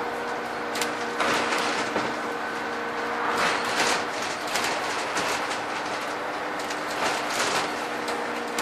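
Scania N230UD Enviro 400 double-decker bus under way, heard from inside on the upper deck: the engine runs with a steady hum of several fixed tones while the bodywork and fittings rattle and knock irregularly, in clusters about a second in, near the middle and near the end.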